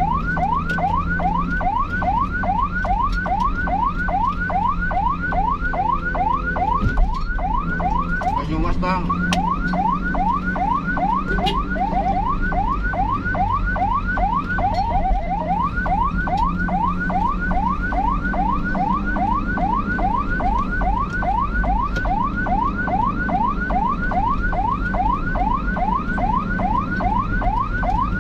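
An emergency-vehicle siren in fast yelp mode, about three to four quick rising sweeps a second, sounding without a break over the steady low rumble of a vehicle.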